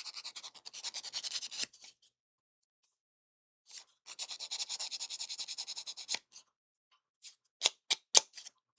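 Small kit part being cleaned up by hand with a small abrasive file, in fast back-and-forth scraping strokes of about ten a second. There are two bursts, with a pause of about two seconds between them. Near the end come a few sharp clicks.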